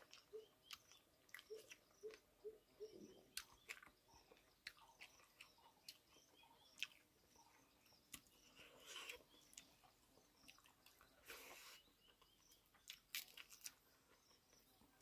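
Near silence with the faint sounds of eating by hand: scattered soft clicks of fingers working rice on a banana leaf, and chewing.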